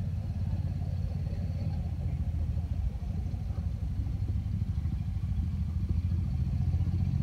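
Side-by-side utility vehicle's engine running as it drives slowly, a steady low rumble that grows slightly louder near the end as it comes closer.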